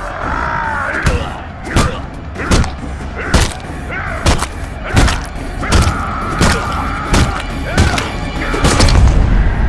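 Movie fight sound effects: about ten heavy punch impacts, roughly one every three quarters of a second, over a music score, with a man's yell near the start.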